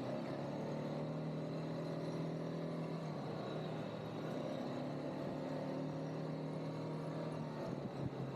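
ATV (quad bike) engine running at a steady speed: an even engine note whose pitch shifts slightly about three seconds in.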